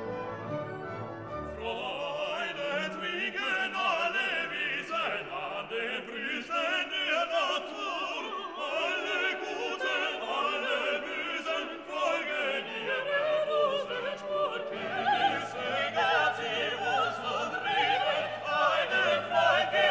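Orchestral classical background music. About one and a half seconds in it changes from held notes to a busy passage of many wavering, vibrato-laden melodic lines.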